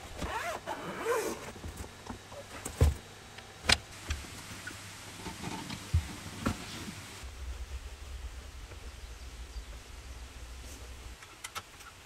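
Camping gear being handled and packed into a car's cargo area: squeaky rubbing as a folding table is lifted, then several sharp knocks as items are set down, and a low rumble in the second half.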